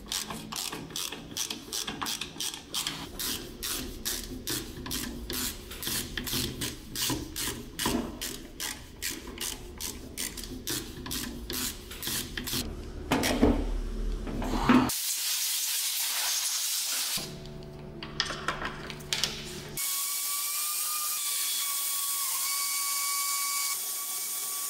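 A ratchet wrench with a hex-bit socket clicks steadily, about three clicks a second, as it turns bolts on an Easytronic gearbox actuator. Past the halfway point the clicking stops, followed by a few knocks, a low hum and then a steady hiss with a faint whine.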